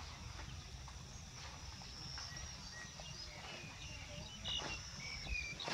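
Rural outdoor ambience: a steady high insect trill with short bird chirps, more of them in the second half, and a few faint taps.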